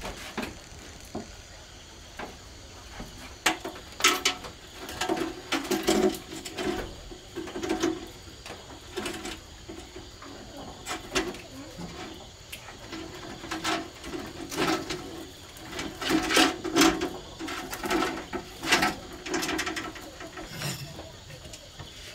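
Dishes set down on a wooden table and a cleaver chopping cooked meat on a thick wooden chopping board: a series of sharp, separate knocks at irregular intervals.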